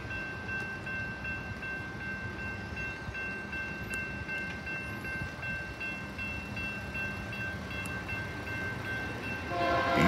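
Grade-crossing warning bell ringing steadily with a high tone. Near the end, the air horn of the approaching Union Pacific locomotive, UP 6547 (a GE C44ACM), starts blowing a chord of several notes and quickly becomes the loudest sound.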